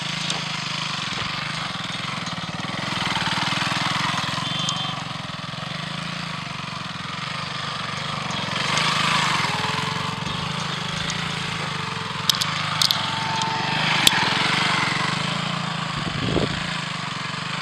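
Motorcycle engine running at low revs under light throttle, a steady hum that rises gently a few seconds in, again around the middle, and once more in the last third as the bike is balanced at walking pace. A few short sharp clicks come near the end.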